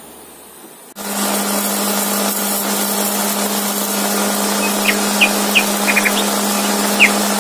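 Philips mixer grinder switching on about a second in and running steadily with a constant hum, grinding dry-roasted spices into powder.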